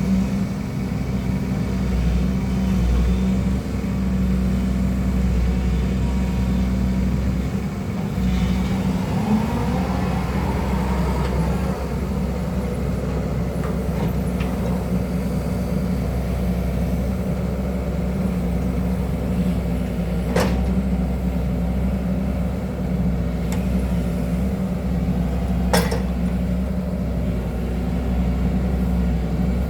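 Hydraulic excavator's diesel engine running steadily under work. Two sharp clicks or knocks are heard about five seconds apart in the latter part.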